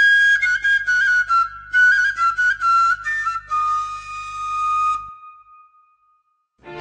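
Background music: a solo, high, flute-like melody of short stepping notes that ends on a long held note, fading out about five seconds in. After a moment of silence, another piece of music starts right at the end.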